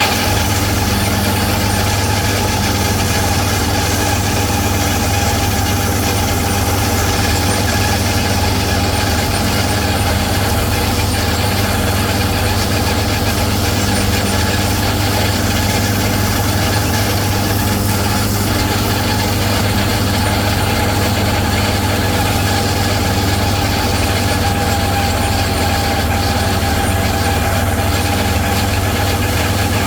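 Tractor engine running at a steady speed while mowing hay.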